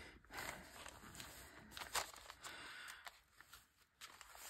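Quiet rustling of paper being handled, with a few light taps and one sharper tap about two seconds in; it goes almost silent shortly before the end.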